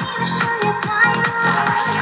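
Electronic dance music played through a pair of small Philips Matchline CRT TV speakers, each an oval midwoofer with a 1-inch tweeter, mounted in free air. A fast pattern of low kick-drum thumps drops in pitch, about four a second, under sustained synth tones.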